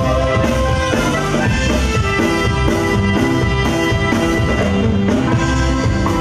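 Live Mexican norteño-sax group playing an instrumental passage: button accordion and alto saxophone carrying the melody over electric bass, guitar and drum kit with a steady beat, no vocals.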